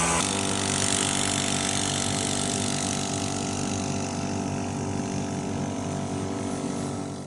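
An engine running steadily, fading out near the end.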